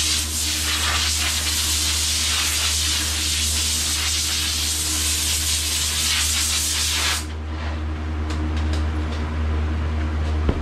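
Compressed-air blow gun hissing as it blows sanding dust off a scuffed cabinet door, cutting off suddenly about seven seconds in. A steady low hum runs underneath, with a few light ticks after the air stops.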